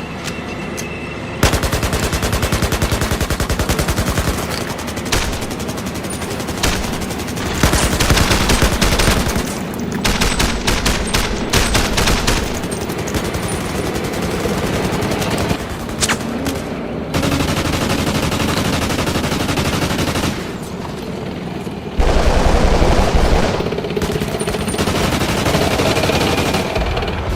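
Sustained automatic gunfire in long rapid bursts, several guns firing, with short lulls between bursts. About 22 seconds in comes a louder stretch with a deep low rumble under the shots.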